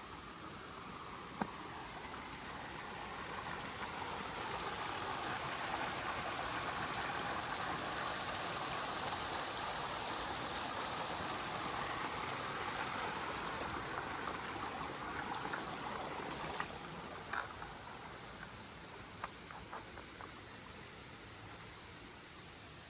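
Rushing water, a steady hiss that swells louder through the middle and eases off toward the end, with a few sharp clicks in the last few seconds.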